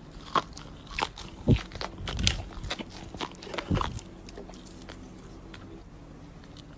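Slime being squeezed and poked by hand, giving a run of sharp pops, clicks and crackles over the first four seconds before it goes quiet.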